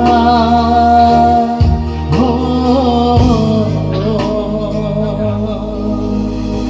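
Dangdut song: a voice sings a long held note, then goes on into another line over a steady musical backing.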